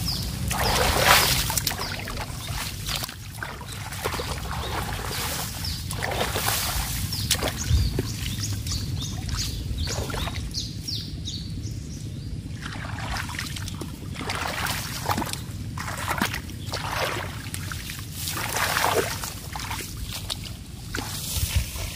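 Shallow paddy water sloshing and splashing in irregular strokes every second or two as a person wades and works with his hands among the weeds.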